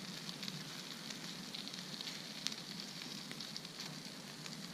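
Campfire crackling and hissing, with scattered sharp pops; the loudest pop comes about two and a half seconds in.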